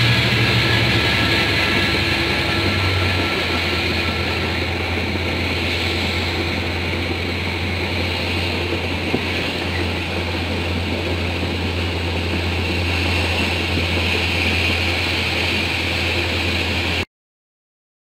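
Diesel passenger train running, heard from inside the carriage: a steady low engine hum over a constant rushing noise, the engine note dropping lower about three seconds in. The sound cuts off abruptly near the end.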